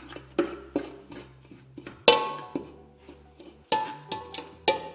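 Background music with held bass notes, over sharp irregular knocks and scraping from a steel mixing bowl as a thick almond and egg-white paste is stirred by hand; some knocks ring.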